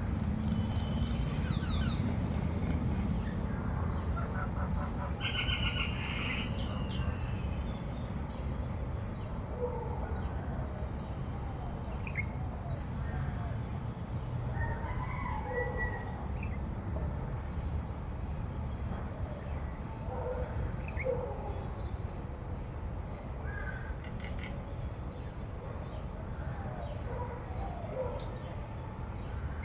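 Birds calling: scattered short calls, with a quick trill about five seconds in, over a steady low rumble and a constant high-pitched drone.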